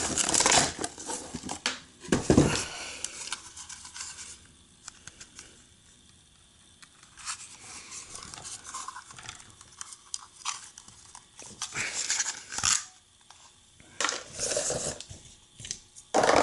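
Hands handling a plastic remote-control toy car and its packaging: irregular clicks, knocks and rustles, busiest in the first few seconds, sparse in the middle and picking up again near the end.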